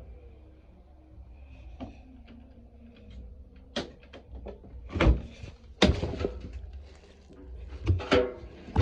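Bosch washing machine's door and drum being handled after the spin and drain cycle: a run of about five knocks and clunks in the second half, over a low steady hum.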